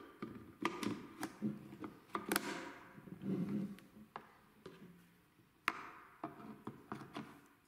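Light clicks, taps and scrapes of an HK G41 rifle's pistol grip module and butt assembly being handled and fitted to the receiver. The sharpest clicks come a little over two seconds in and near six seconds, each followed by a short scrape.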